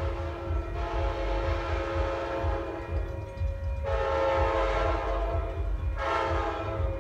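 Train horn of an approaching passenger train sounding in the distance, a chord of several steady tones blown as long blasts followed by a short one near the end, the long-long-short pattern used for a grade crossing. A steady low rumble runs underneath.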